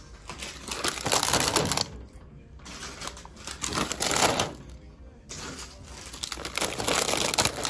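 Crinkling and rustling of plastic snack bags being handled and loaded into a vending machine's spiral coils, in three bursts.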